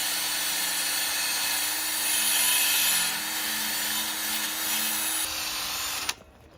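A power tool spinning a wire wheel against exhaust header metal, a steady motor hum under a harsh scraping hiss that grows loudest in the middle. It cuts off suddenly about six seconds in.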